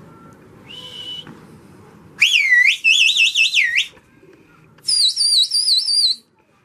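Loud whistling: a short held note, then a whistle that swoops down and up and warbles about four times a second, then a higher warbling whistle after a brief pause.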